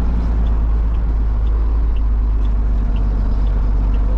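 Truck diesel engine with a straight-through exhaust (escape direto) running steadily in a low rumble, heard from inside the cab, with a light tick about twice a second.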